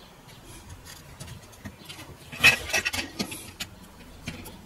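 Handling noise from a plastic battery-pack housing and its wiring: scattered small clicks and taps, with a denser run of clicks and scrapes about halfway through.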